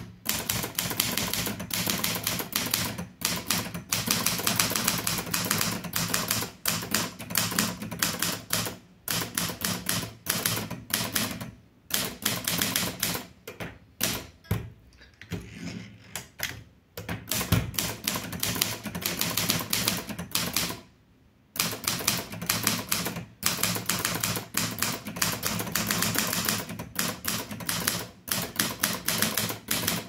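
Keys of a Litton Royal 203 portable manual typewriter striking in quick, uneven bursts of typing with short pauses. About halfway through there is a lull, then one louder heavy clack as the carriage is thrown back with the return lever before the typing resumes.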